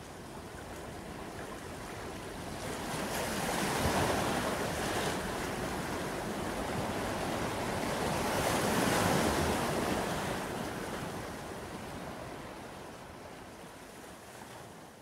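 Ocean waves surging and washing back, with wind. The surf swells about four seconds in and again about nine seconds in, then fades away.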